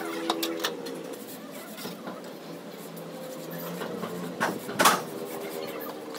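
A few short knocks and scrapes of precast cement and brick pieces being shifted into place on top of a masonry column, the sharpest knock just before the five-second mark.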